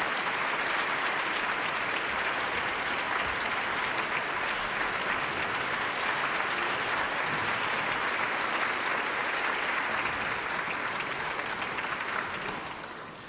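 Concert audience applauding, a steady dense clapping that dies away near the end.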